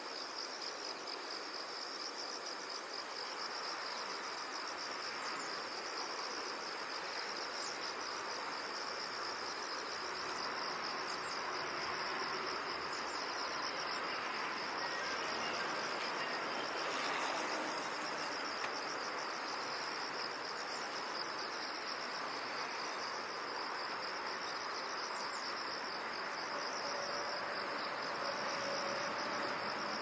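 Insects chirping in a steady, high-pitched pulsing trill over a soft, even background rush.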